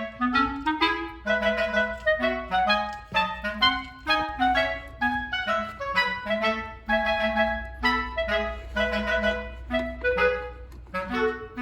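Background music: a lively woodwind melody of short, quick notes.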